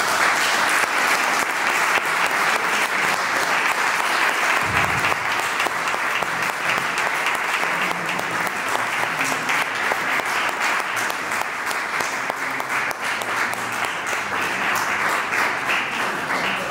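An audience applauding in one long, steady round of clapping.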